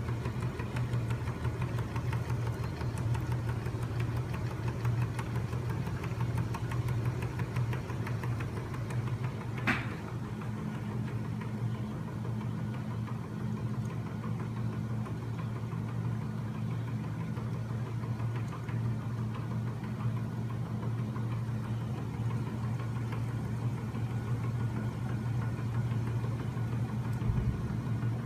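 Home-built magnet engine running steadily: its flywheels, crankshaft and linkages spin with a low steady hum and a fast mechanical rattle. A single sharp click comes about ten seconds in.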